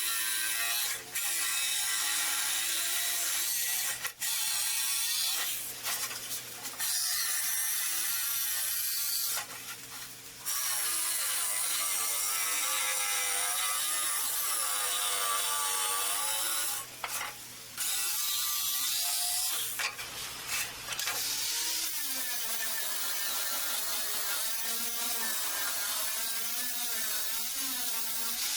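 A tool's mechanism whirring and ratcheting in long runs, its pitch wavering up and down, with several short stops.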